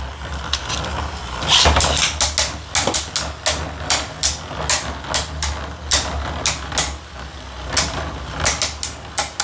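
Two Beyblade Burst tops (Hell Kerbeus and a Storm Pegasus burst remake) spinning in a plastic stadium with a steady low hum, clashing again and again with sharp clacks. The second top is launched into the stadium near the start.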